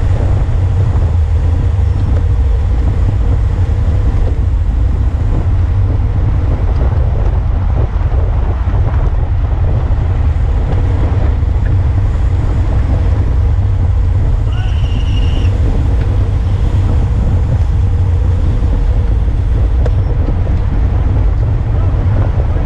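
Steady wind rumble buffeting the microphone of a handlebar-mounted camera on a road bike riding in a pack, with a hiss of tyres on asphalt. A short high tone sounds about fifteen seconds in.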